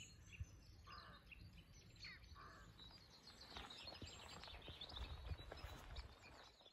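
Faint birdsong outdoors: small birds chirping, with a rapid run of high chirps in the second half, over a low rumble.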